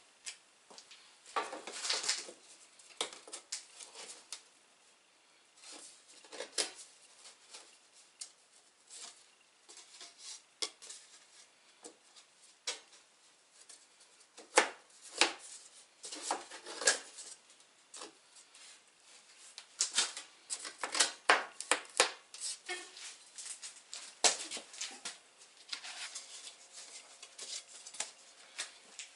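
Laminate parquet planks being laid and pushed together in a square steel-tube shelf frame: irregular clicks and knocks of the boards against the metal and each other, with a few short scrapes.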